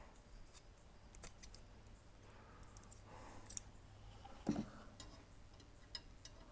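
Faint, scattered clicks and taps of a small metal hand tool being tried against the blade-guide adjustment screw of a 9-inch Delta bandsaw, with one soft knock about four and a half seconds in.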